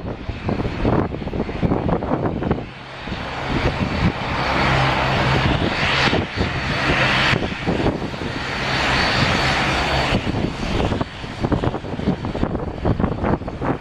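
Jet engines of a Swiss Airbus A320 during its landing: a loud rushing roar that swells twice and eases off, over a steady low hum. Wind gusts buffet the microphone throughout.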